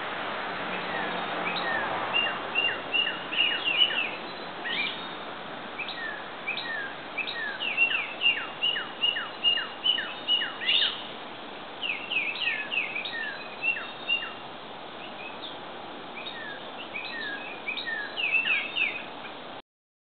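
Several birds chirping and whistling: a busy run of short, high chirps, many sliding quickly downward in pitch, with different calls overlapping, over a steady background hiss.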